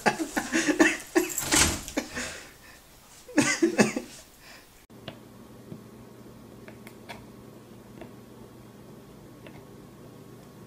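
Loud scuffling and rustling noise for the first few seconds, then a quiet steady hum with a few faint, scattered ticks as a kitten chews on a spring door stop.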